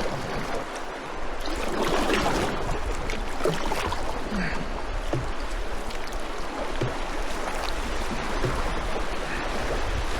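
River water rushing and splashing around a canoe, getting louder about a second and a half in.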